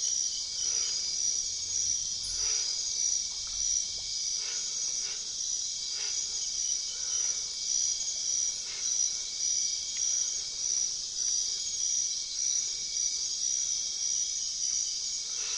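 Steady high-pitched chorus of forest insects, pulsing evenly, with a few faint soft crackles scattered through it.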